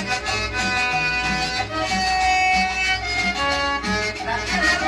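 A cumbia record playing from a vinyl LP at 33 rpm: a melody over a repeating bass line.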